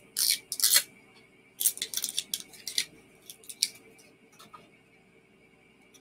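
A run of short, sharp rustling and clicking noises from hands handling a glass sauce bottle, over a faint steady hum.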